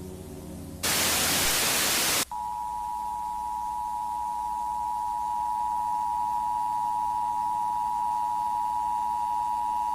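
A loud burst of static lasting about a second and a half, then the two-tone Emergency Alert System attention signal: a steady, piercing beep of two pitches sounding together. A faint musical note is dying away at the very start.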